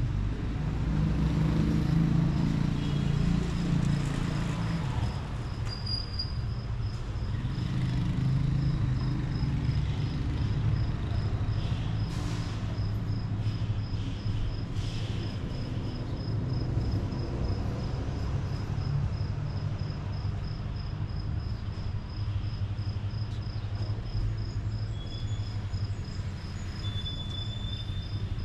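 Outdoor street ambience: a steady low rumble of distant traffic, with a high chirp repeating evenly throughout and two brief rustling noises around the middle.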